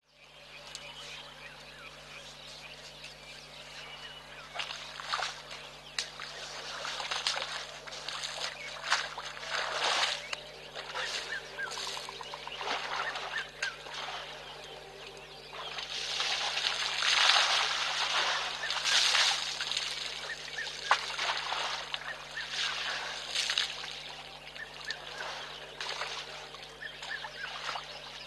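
African elephant splashing and slapping wet mud in a wallow with its trunk: irregular squelching splashes, busiest and loudest a little past halfway, over a steady low hum.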